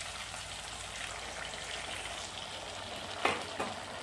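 Oil and masala in a hot steel wok sizzling steadily as water is poured in over frying pointed gourds. Two short knocks come near the end.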